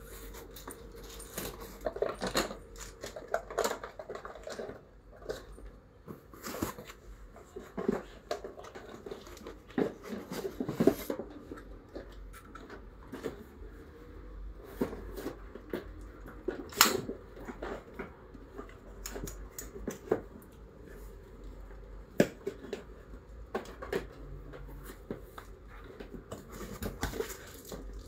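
Unpacking noises from a cardboard box and its packaging: irregular rustling and scraping with many short, sharp knocks and clicks, two of them louder about eleven and seventeen seconds in, as a small tabletop tripod and case are handled.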